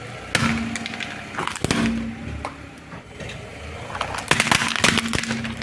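Car tyre rolling over and crushing brittle objects: sharp cracks and crunches in three bursts, one about a third of a second in, another around a second and a half in, and a longer run of crunching in the last second and a half.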